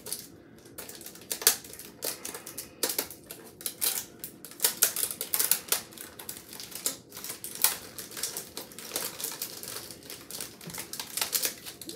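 Clear plastic false-eyelash cases clicking and clattering against each other as they are handled, a rapid irregular run of sharp taps.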